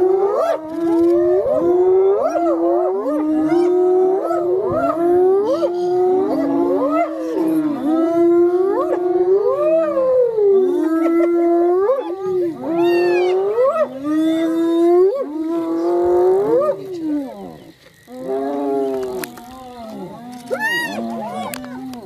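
Several wild animals calling loudly over one another: long pitched cries that slide up and down and overlap without a break, dropping away briefly about 18 s in before fewer calls carry on.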